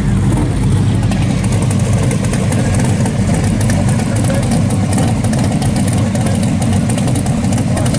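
Hot-rodded car engines rumbling steadily at low speed as show cars roll slowly past, among them a big-block Chevy Nova SS 396 drag car.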